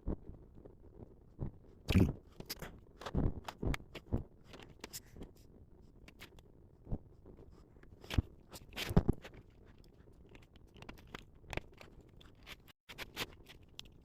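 3D-printed PLA parts being handled and fitted into a plastic paint rack: irregular clicks, taps and light scrapes of hard plastic, with a few louder knocks about two, three and eight to nine seconds in.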